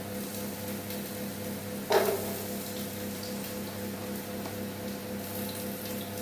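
Sliced onions, shallots and garlic sizzling in hot ghee in a pot, a steady hiss over a low hum, with a single knock about two seconds in.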